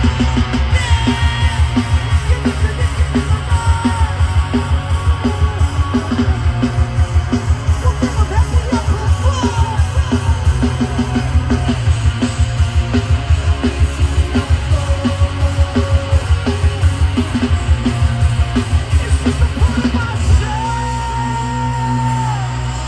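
Live hardcore/metal band played loud through a festival PA, with heavy bass, distorted guitar, yelled vocals and a fast drum beat of about five hits a second. About 20 seconds in the drumming stops and a held chord rings on.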